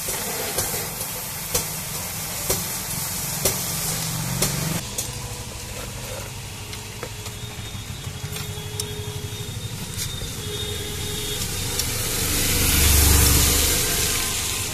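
Used engine oil pouring from a scooter's drain hole into a plastic bucket: a steady splashing hiss, with faint knocks about once a second over the first few seconds. Near the end a low rumble swells and fades.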